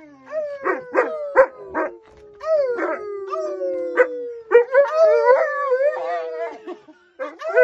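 A large black dog howling in long notes that slowly fall in pitch, with short yips in the first few seconds. A man howls along with it, so two howls overlap at different pitches.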